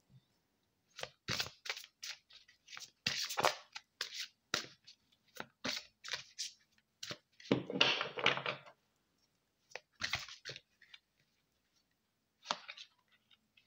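A deck of oracle cards shuffled by hand: short papery rustles and snaps of cards sliding against each other, coming in irregular bursts, the longest about eight seconds in.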